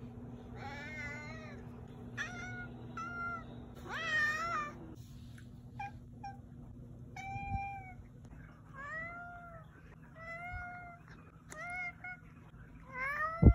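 Tabby house cat meowing over and over, about ten short meows, each rising then falling in pitch, with a low steady hum under the first half.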